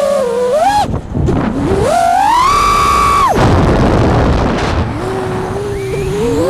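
FPV quadcopter's brushless motors whining, the pitch rising and falling with the throttle; it climbs to a high held whine, cuts off suddenly about three seconds in, gives way to a rushing noise, then comes back steadier and climbs again near the end.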